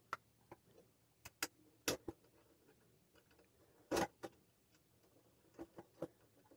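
Scattered light clicks and taps from a hand handling and positioning the stainless steel base of a slow cooker, with two louder knocks about two and four seconds in.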